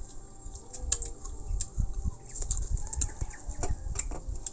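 Eating at the table: chewing and a cooked stalk being peeled apart by hand, with scattered sharp clicks and taps over a low rumble.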